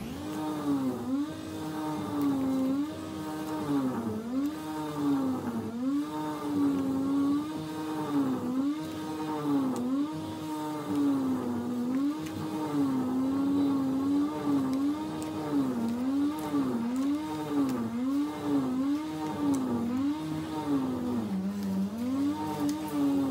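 Engine of work machinery running steadily outside, its pitch rising and falling over and over, roughly every second and a half.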